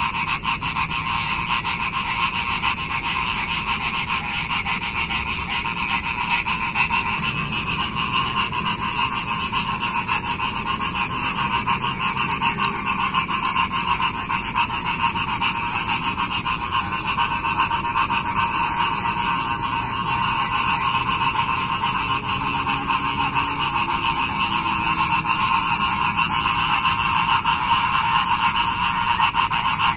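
A dense chorus of many frogs calling together after rain, steady and unbroken, with a thin high-pitched whine above it.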